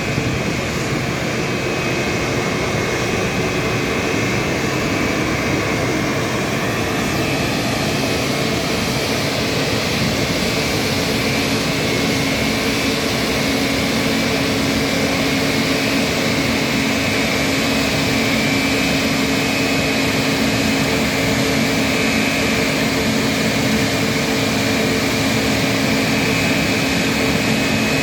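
Airbus A220's Pratt & Whitney PW1500G geared turbofan engines running steadily, a loud rush with a steady whine of several tones that grows stronger about ten seconds in.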